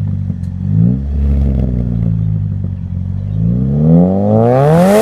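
2006 Pontiac Pursuit GT's exhaust as the parked car's engine is revved. There is a short blip about a second in, then a longer rev that climbs steadily in pitch over the last couple of seconds.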